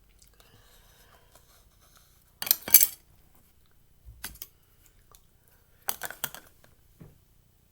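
Several short bursts of scraping and clattering handling noise. The loudest comes about two and a half seconds in, with smaller ones around four, six and seven seconds in.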